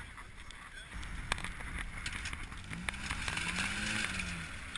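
Lifted 4x4 pickup truck driving through shallow tidal water. Its low engine note rises and then falls in the second half, over a steady hiss of water and wind.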